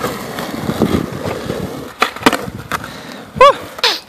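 Skateboard wheels rolling on asphalt, then sharp wooden clacks about two seconds in as the tail pops and the board lands an ollie. A short loud voiced cry comes near the end.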